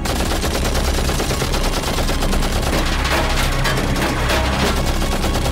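Cartoon sound effect of rapid, continuous cannon fire from robot soldiers' arm-mounted guns, volleys of shots hitting an armour-plated van.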